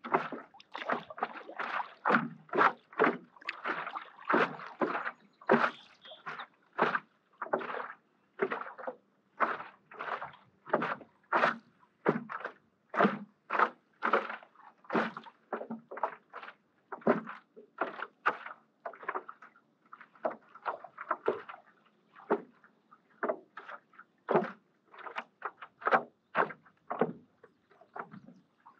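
Water sloshing and lapping around a stand-up paddleboard and its paddle as it is paddled on a lake: short irregular splashes, about two a second.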